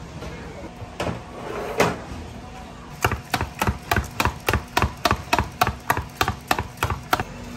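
A small wire whisk beats egg yolk for egg wash in a stainless steel cup, the wires rapidly and evenly clinking against the cup at about four strokes a second. The whisking starts about three seconds in and stops just after seven seconds. A couple of single knocks come before it.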